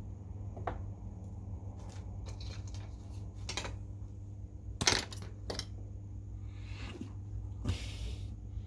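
Small tools and plastic packaging being handled on a bench: scattered light clicks and taps, a sharper click about five seconds in, and a short rustle near the end, over a steady low hum.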